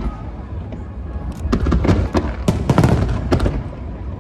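Aerial fireworks going off: a few separate bangs, then from about a second and a half in a dense, rapid volley of bursts with booming lows.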